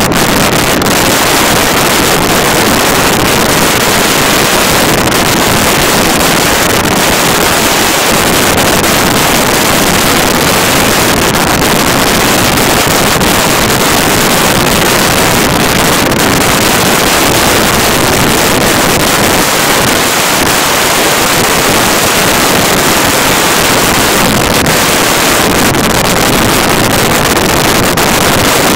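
Steady, loud wind rush over the microphone of a camera on a moving motorcycle.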